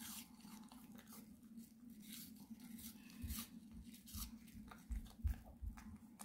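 A Maltese dog chewing crisp raw vegetables and fruit fed to it by hand, close to the microphone. The chewing comes as faint, irregular wet crunches and clicks, over a steady low hum.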